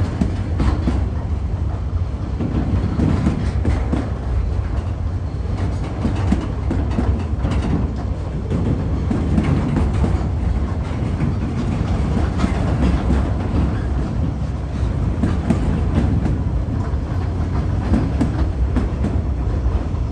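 Freight train's loaded container flat wagons rolling past: a steady low rumble of steel wheels on rail, with frequent irregular clicks and knocks as the wheels run over the track.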